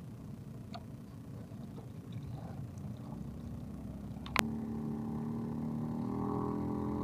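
A low rumble, then a single sharp click about four seconds in, after which a boat engine is heard running steadily, growing a little louder near the end.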